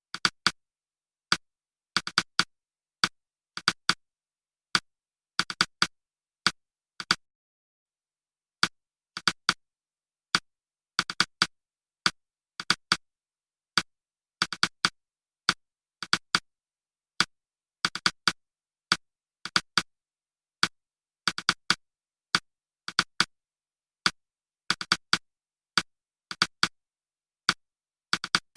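Sharp, identical clicks with silence between them, coming singly and in quick clusters of two or three at uneven intervals.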